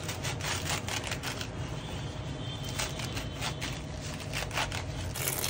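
Kitchen knife chopping spinach leaves on a wooden cutting board: a quick, irregular run of light chops. About five seconds in the chopping stops and a steady hiss takes over.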